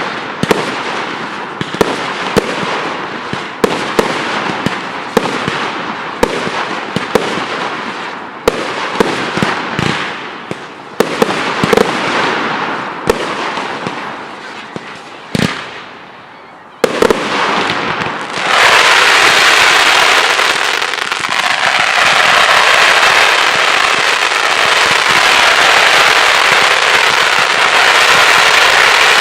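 Professional fireworks display: a rapid string of sharp bangs from bursting shells, with hiss and crackle between them. Near two-thirds of the way through, the bangs give way to a dense, continuous crackle and hiss that stays loud until the end.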